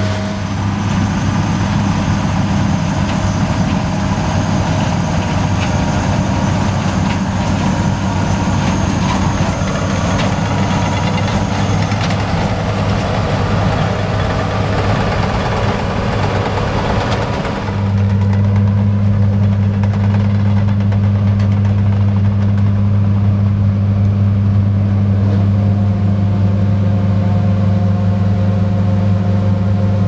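John Deere S670i combine harvester with its six-cylinder 9-litre PowerTech PSX diesel, running steadily while harvesting rice: a constant low engine drone under a hiss. A bit over halfway through the hiss falls away and the engine drone becomes louder and steadier.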